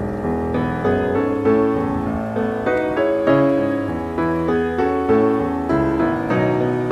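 Background piano music: a steady flow of melodic notes over held bass notes.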